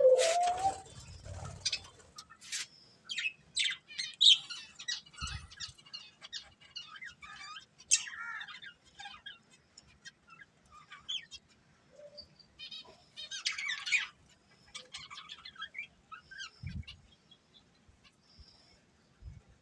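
Budgerigars chirping and chattering in short, irregular high calls, with a loud, scratchy burst in the first second or two.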